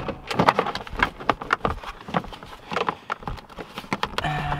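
Hard plastic steering column trim on a Nissan Xterra clicking, tapping and rattling under the hands as the cover is worked loose, in a quick irregular run of sharp clicks. Near the end comes a short, steady hum.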